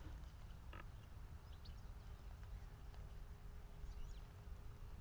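Faint outdoor background: a low wind rumble on the microphone with a few faint, short, high chirps of distant birds.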